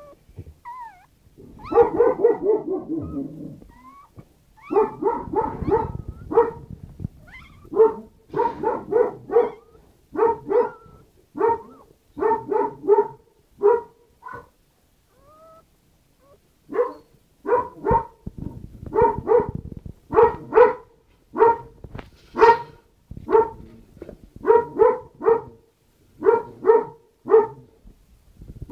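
A dog barking repeatedly in quick runs of three to five barks with short pauses between them, and a falling whine about two seconds in.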